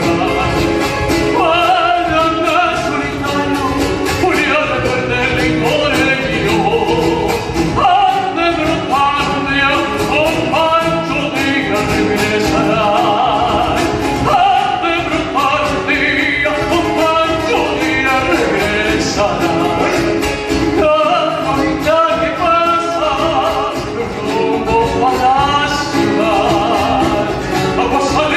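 Latin American folk song: a singing voice over instrumental accompaniment with a steady beat.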